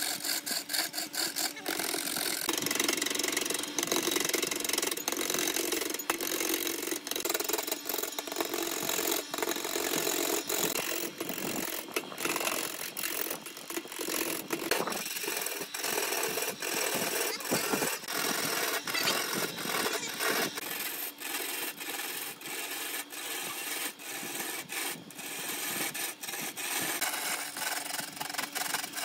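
A hand-held turning tool cutting into a large wooden blank spinning on a wood lathe, throwing off chips. It makes a continuous rough, scraping cut, broken by many brief dips as the tool bites the uneven surface.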